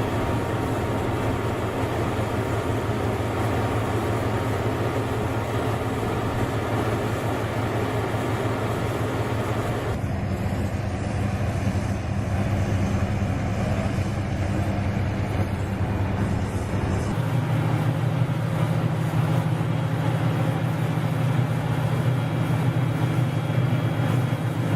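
Heavy construction machinery running with a steady low engine drone. The pitch and character of the drone change abruptly about ten seconds in and again about seventeen seconds in.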